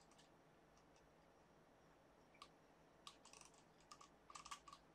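Near silence broken by a few faint clicks from operating a computer, coming in small clusters in the second half.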